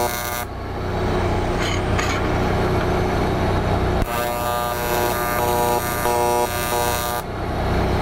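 TIG welding arc buzzing. It stops half a second in, then strikes again abruptly about four seconds in and buzzes for about three seconds before cutting off; the tungsten has just been scratched clean so the arc starts at once. A steady low engine hum runs underneath.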